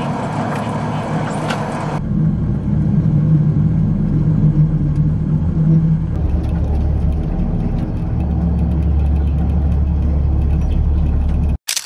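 Sky capsule rail car running along its elevated track, heard from inside the cabin: a steady low rumble and hum. The rumble changes abruptly a few times, and a short loud burst comes right at the end.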